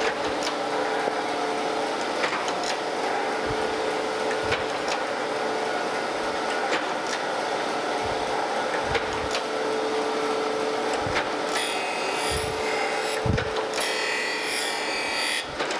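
Landis surface grinder running steadily while its table carries the straight edge castings under the wheel. In the last few seconds the wheel bites into the casting twice, adding a harsh hissing grind as sparks fly. This is the cleanup pass taking out the last low spot on the face.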